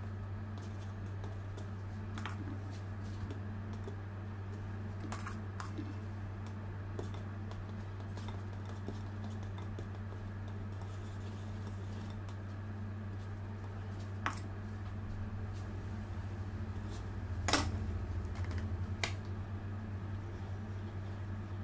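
Steady low hum, with a few short clicks and scrapes from an icing spatula and plastic scraper working whipped cream on a metal cake turntable; the sharpest click comes about two-thirds of the way through.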